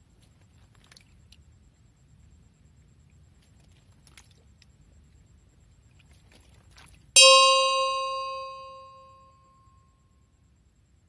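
A single loud bell-like ding about seven seconds in, struck once and ringing away over two to three seconds, after faint low background noise with a few small clicks.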